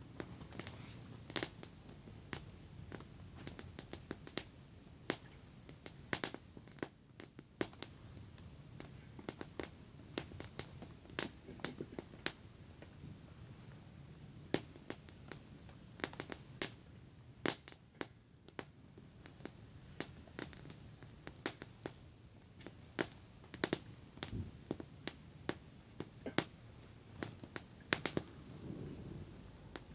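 Small wood campfire crackling, with irregular sharp pops and snaps over a low steady hiss.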